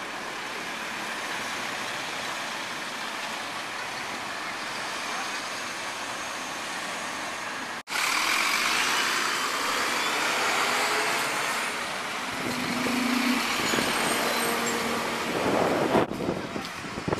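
Road traffic and London buses running past at a bus station: a steady traffic noise that changes abruptly about eight seconds in to louder, closer bus engines with faint whines, and changes again near the end as a single-decker and then a Scania double-decker pass close by.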